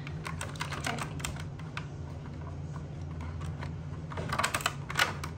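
Clear plastic blister tray clicking and crackling as fingers work a die-cast toy pickup truck out of its moulded slot: a run of light quick clicks in the first couple of seconds, then a louder cluster near the end as it comes free.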